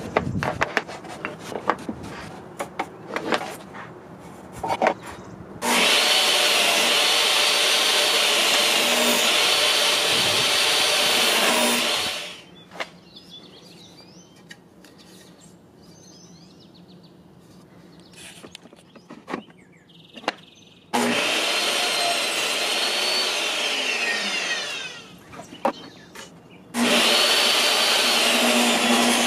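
Jobsite table saw, started three times. Each time the motor comes on abruptly and runs at a steady loud pitch through a cut, then winds down with a falling whine. Before the first start, wood blocks knock and click as they are handled.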